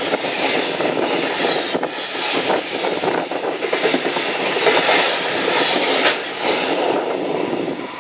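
Container freight wagons rolling past close by, their wheels clattering and rattling on the rails in a dense, continuous clatter. The noise drops as the last wagon goes by near the end.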